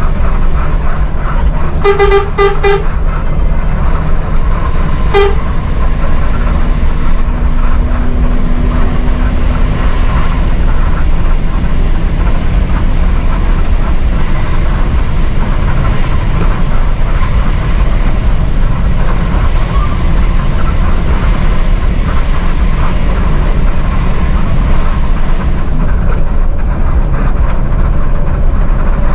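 An intercity coach's diesel engine and road noise, heard from inside the cab, running steadily as the bus drives. About two seconds in a horn sounds about four quick toots, and it gives one more short toot about five seconds in.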